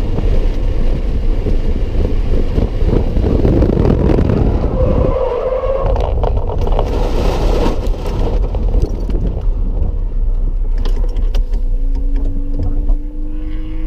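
Scion FR-S flat-four engine and road noise heard from inside the cabin at track speed. About five seconds in, the tyres squeal and scrub for a few seconds as the car spins. Afterwards the engine runs quieter, with scattered ticks and clicks, and its note rises slowly near the end.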